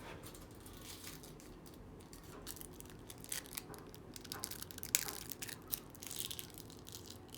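Plastic packaging crinkling and being torn open by hand, in irregular crackles that grow busier about halfway through.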